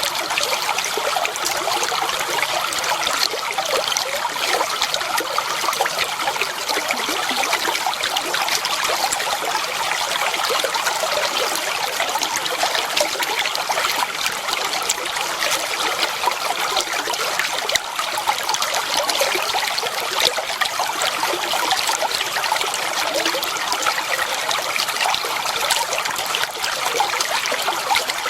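Clear water flowing and trickling steadily over rocks, an even babbling rush with no pauses.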